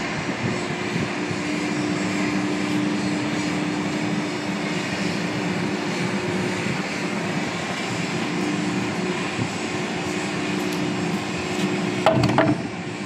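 Ship's machinery running with a steady drone and a low hum. There is a brief clatter about twelve seconds in.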